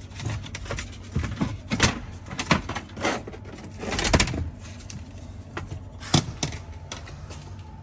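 Tesla Model 3/Y dashboard wood trim panel being worked free and lifted out: irregular plastic clicks and knocks, with a longer scrape about four seconds in.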